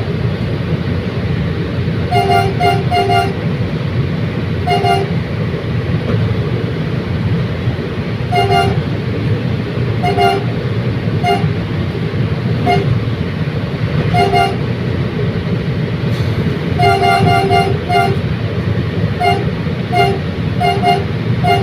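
A train's horn giving many short toots of one steady pitch, in quick groups of one to four, over the steady low rumble of the train running.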